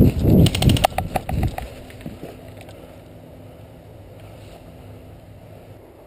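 A quick burst of about ten airsoft gun shots, clicking evenly about half a second in, over loud thumping and rustling as the player moves through dry fallen leaves. After that only a steady, quieter rustle of movement remains.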